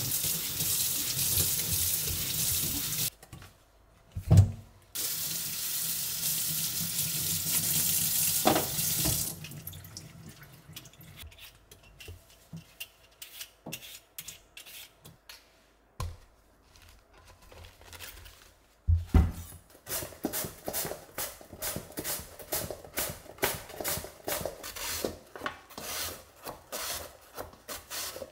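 A kitchen tap running into a stainless-steel sink while a cucumber is rubbed clean under it. The water stops briefly about three seconds in and stops for good about nine seconds in. Then come a few light scrapes of a handheld vegetable peeler, and from about twenty seconds in a quick, even run of slicing strokes on a plastic mandoline slicer, about two or three a second.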